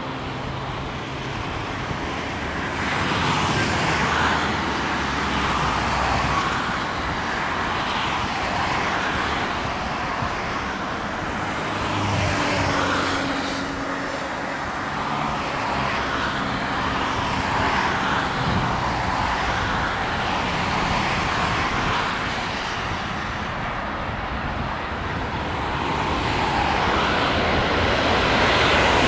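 Airbus A320-232 airliner's twin IAE V2500 turbofans during landing, a steady jet rush as it touches down and rolls out, growing louder near the end as the aircraft comes toward the listener.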